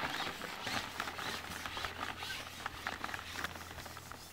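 Irregular light clicking and rattling as a carbon fishing pole is handled and slid over its pole roller, with a faint steady low hum beneath. The clicks thin out near the end.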